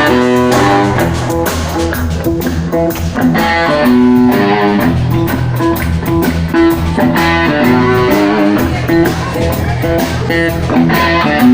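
Instrumental blues music: an electric guitar plays quick lead lines over bass guitar and drums.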